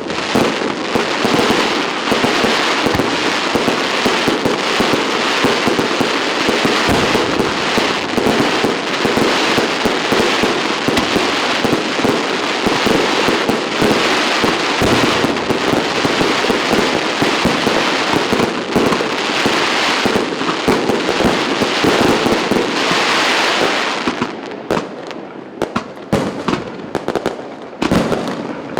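Fireworks display: a dense, continuous barrage of bangs and crackling shells bursting, thinning to separate bangs about four seconds before the end.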